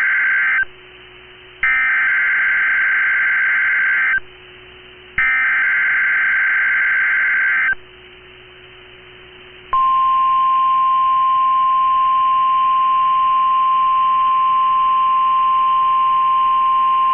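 Emergency Alert System signal on NOAA Weather Radio: the end of one SAME digital header burst, then two more harsh warbling data bursts about a second apart, followed about ten seconds in by the steady 1050 Hz warning alarm tone that announces a severe thunderstorm warning.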